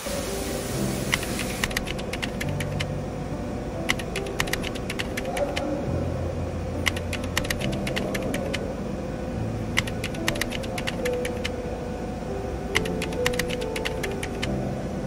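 Short runs of quick, sharp clicks or taps, coming every second or two over background music.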